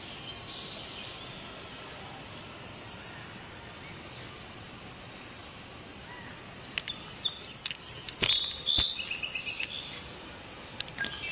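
Outdoor ambience of insects buzzing steadily in a high hiss, with birds chirping. From about seven seconds in comes a run of louder sharp chirps and clicks.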